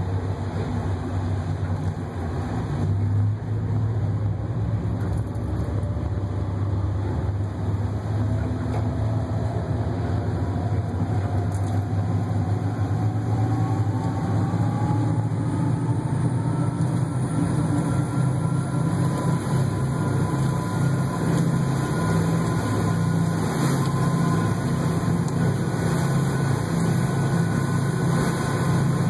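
The M/V Sybil Graham's diesel engines throttling up from a stop: a deep steady drone with a whine that climbs in pitch over the first twenty seconds or so, then holds as the boat comes up to speed.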